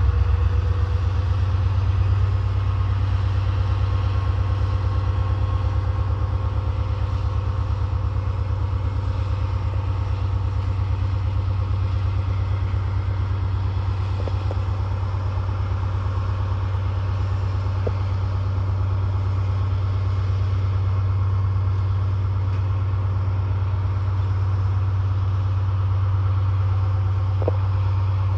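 Class 70 diesel locomotive's V16 engine running with a deep, steady sound as it hauls tank wagons slowly. A few faint clicks come in around the middle and near the end.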